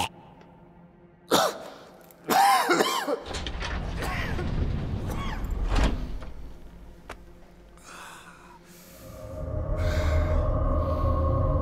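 Film sound design: a sharp hit, then a man's short strained vocal sound with sliding pitch, a low rumble, and from about nine seconds in a sustained droning music chord.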